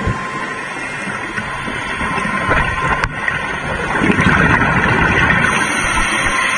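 Muffled underwater noise of water rushing past a camera housing, with scuba divers' regulator exhaust bubbles.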